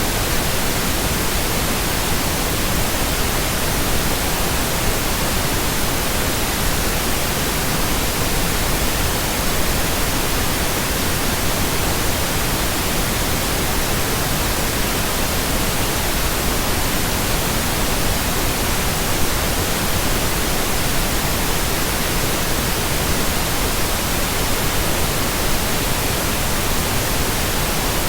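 Electronically generated pink noise: a steady, even hiss that does not change.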